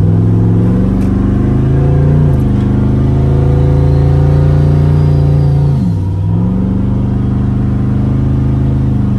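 Twin-turbo LSX V8 of a street truck running under light throttle, heard from inside the cab while cruising. The engine note holds steady, drops slightly about two seconds in, and dips and climbs back about six seconds in.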